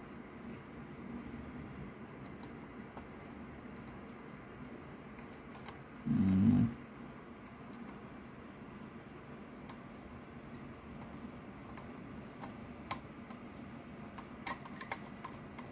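Scattered small clicks and ticks, coming more often near the end, as a 96-pin DIN connector with slightly bent pins is pushed and worked into the holes of a circuit board.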